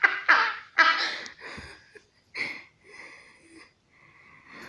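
A person laughing hard in wheezy, breathy bursts, loudest in the first second and a half, then tailing off into softer breaths.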